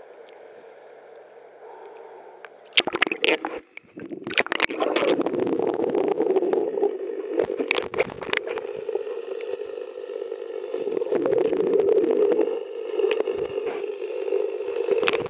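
Seawater lapping softly at a camera held at the surface. About three seconds in come a few loud splashes as it plunges under, then the muffled, gurgling rumble of water heard through the submerged camera, with scattered small clicks and knocks.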